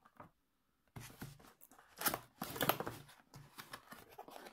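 Cardboard box being handled and its end flap opened: rustling and scraping of cardboard with a few sharper scuffs, starting about a second in.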